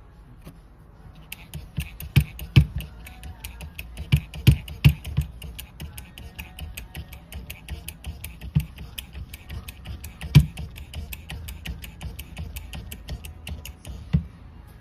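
Kamekura HP-3 manual puncher being worked by hand: a fast, even run of sharp mechanical clicks, several a second, with a few heavier knocks, the loudest about ten seconds in.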